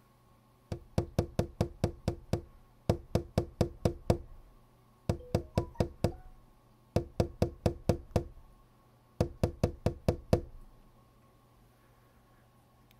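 Rapid knocking on a window pane with a finger: five bursts of six to eight quick knocks, with short pauses between them.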